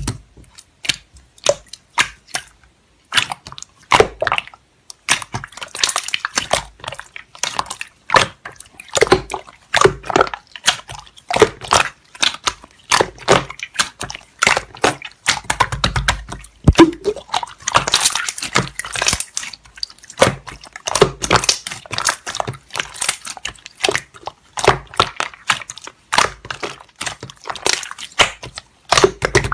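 Slime being squished and stretched by hand, giving a dense run of sticky, wet clicks, pops and crackles.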